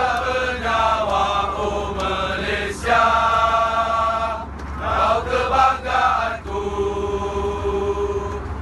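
A large group of football supporters singing a chant in unison, many men's voices holding long notes, inside an airliner cabin with a steady low hum underneath.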